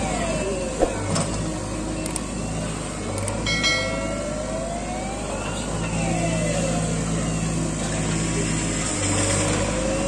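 JCB 3DX backhoe loader's diesel engine running under load as the backhoe arm digs and lifts soil, with a whine that slowly rises and falls in pitch as the arm moves. A sharp knock comes about a second in, and a short high-pitched tone about three and a half seconds in.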